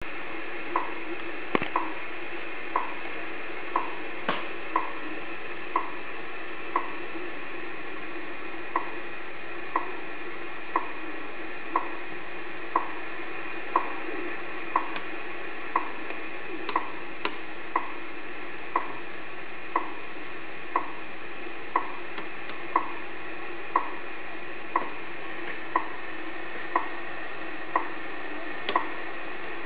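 Shortwave radio tuned to the WWV time station on 10 MHz: a short tick once a second over steady static hiss, with an occasional crackle.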